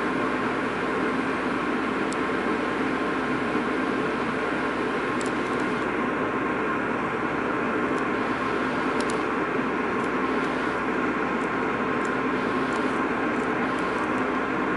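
Steady drone of a car ferry's engines and machinery heard on board while entering port: many steady tones over an even hiss. A few faint high ticks come through now and then.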